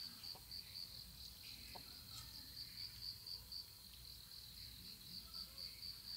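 A cricket chirping faintly in an even, rapid pulse of high notes, with a few faint ticks underneath.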